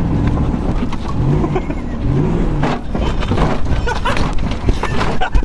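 Vehicle engine and drive noise heard from inside the cab while driving a snowy trail, the engine note rising and falling twice. Knocks and rattles come in over the second half.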